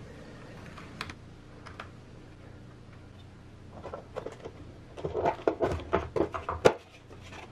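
Small plastic clicks and taps from handling a wall clock: the hands pressed onto the spindle, then the clear plastic cover pressed and snapped into the bezel. A few scattered clicks at first, then a quick run of clicks and knocks in the last few seconds, the loudest near the end.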